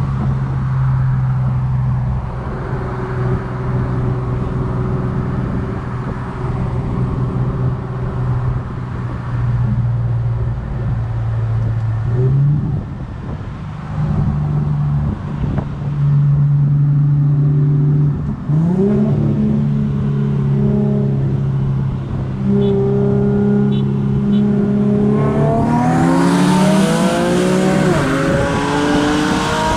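Car engine running at a steady low drone, rising in pitch briefly about twelve seconds in and again about eighteen seconds in, then revving up in a long climb under hard acceleration near the end, with a loud rushing noise over the engine.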